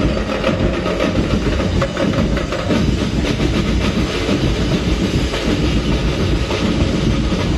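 Loud percussion-driven music accompanying a street-dance routine, with rapid, steady drumbeats.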